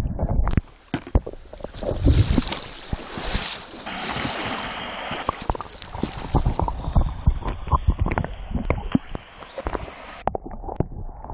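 Water rushing and splashing for about ten seconds, starting and stopping abruptly, with scattered knocks and splashes through it.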